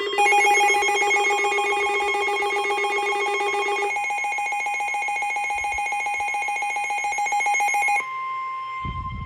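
Emergency alert attention signal: a loud, steady electronic two-tone alert that holds for about eight seconds and then cuts off. A lower tone drops out about halfway, and a fainter single steady tone carries on after the cutoff. It marks the start of a new severe weather warning.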